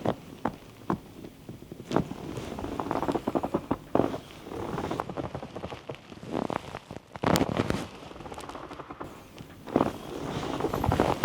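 Hands working on a person's body in a massage and chiropractic session: a series of sharp smacks and pops, some single and some in quick clusters.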